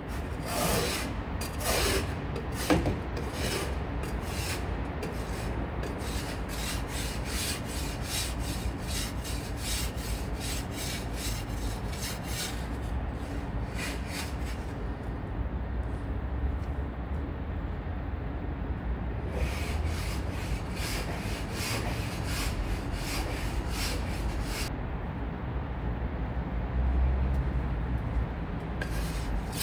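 Hand-held car ice scraper scraping snow and ice off a car's windows, in runs of quick strokes, a few a second, with pauses between.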